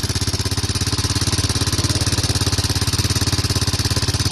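Power impact wrench hammering steadily, loosening the cylinder-head bolts, with a fast, even rattle.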